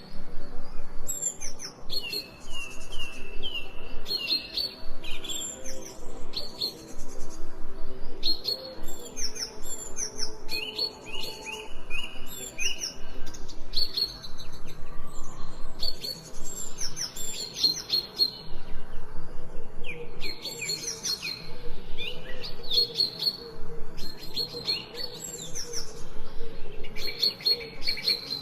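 Songbirds chirping and singing continuously, with many short, repeated chirps and trills. A soft, steady low hum runs underneath.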